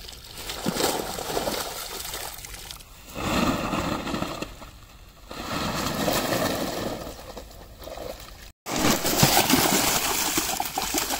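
Pond water splashing and sloshing in uneven surges as fish are hauled in a net, with a sudden brief break in the sound about eight and a half seconds in.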